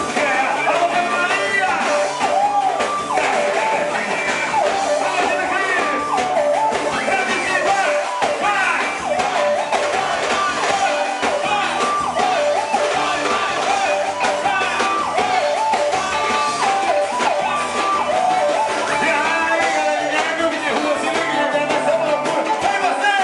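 Live band music with a singer, loud and unbroken.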